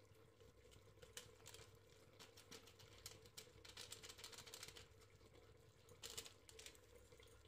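Faint crinkling and tapping of a small paper spice packet as masala powder is shaken out of it, in scattered light clicks that gather into busier patches in the middle and a little later, over a faint steady hum.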